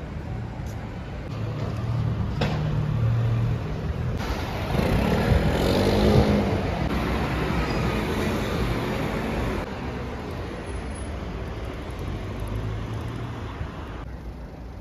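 City street traffic: cars and vans driving past on the road, with one vehicle passing close and loudest about six seconds in.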